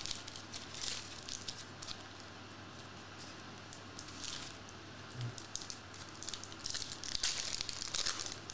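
Plastic-foil trading card pack wrapper crinkling in the hands and being torn open. The rustling comes in scattered short bursts and is loudest near the end.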